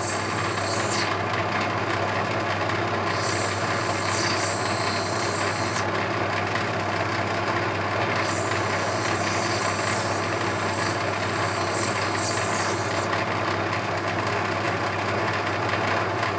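Electric motor of a lapidary grinding machine running with a steady hum, while rough opal is ground on a wet diamond wheel. A high, gritty hiss comes and goes in several spells of a few seconds as the stone is pressed against the wheel.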